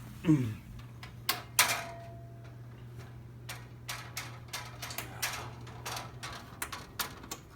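A run of short clicks and knocks as the vintage box fan is handled and turned over, with one sharp click that rings briefly about a second and a half in. A steady low hum underneath stops near the end.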